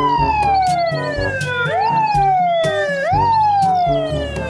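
Fire engine siren wailing in a repeating pattern: each cycle rises quickly in pitch and then falls slowly, about once every second and a half.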